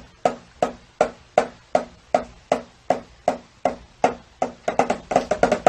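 Repeated sharp knocks, about two and a half a second, each with a short ringing tone. They come faster and louder near the end.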